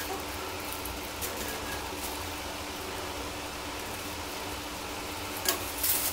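Scissors snipping through a plastic courier mailer bag, faint crinkles and snips over a steady low hum, then loud plastic crackling and rustling near the end as the cut strip is pulled away.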